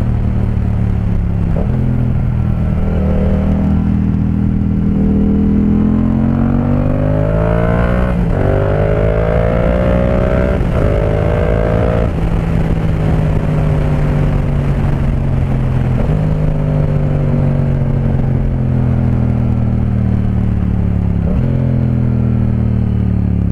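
Yamaha MT-07's parallel-twin engine through an Akrapovic 2-in-1 carbon exhaust with the baffle removed, heard from the rider's seat while riding. It pulls up through the gears for about twelve seconds, the pitch climbing and dropping back at each shift. Then the throttle eases and the note falls slowly as the bike slows.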